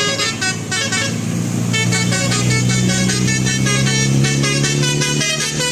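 Bus telolet 'basuri' horn, a set of electric horns playing a quick melody of short notes that change pitch in steps. A low steady hum sits underneath it from about a second and a half in until near the end.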